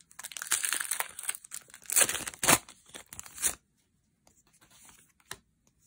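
Crinkling, tearing rustle of Magic: The Gathering cards and booster-pack packaging being handled by hand, in a run of bursts lasting about three and a half seconds, loudest around two seconds in, then only a few faint ticks.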